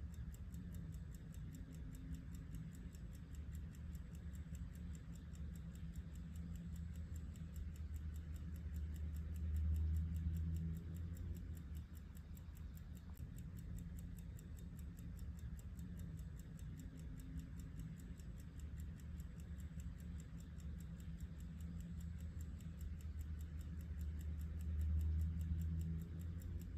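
Antique 21-jewel Illinois Bunn Special railroad pocket watch ticking steadily and rapidly after its service, over a low hum that swells twice.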